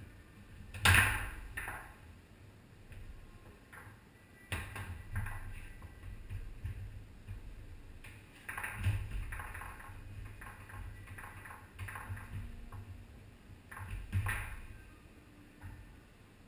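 Tornado foosball table in play: irregular sharp clacks and knocks of the ball being struck by the players' men and rebounding off the table, with rods rattling between shots. The hardest strike comes about a second in, with further hard hits around five, nine and fourteen seconds in.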